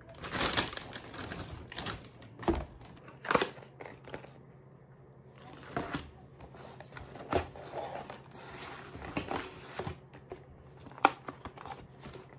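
Thin plastic delivery bag crinkling and rustling as takeout fried-chicken boxes are pulled out of it, then paperboard box lids being opened and handled, with scattered sharp taps and crackles.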